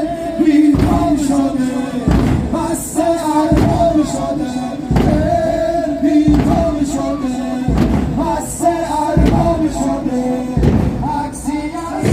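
Muharram mourning lament sung over a slow, steady drum beat, about one heavy beat every second and a half.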